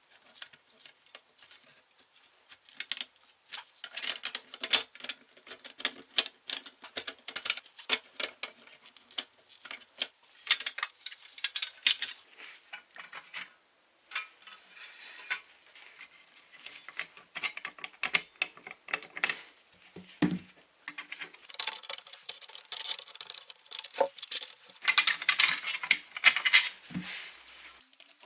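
Small metal hand tools clicking, tapping and scraping on the rusty sheet-steel parts of a toy truck as it is taken apart: many quick irregular clicks, with a few duller knocks and a stretch of denser scraping near the end.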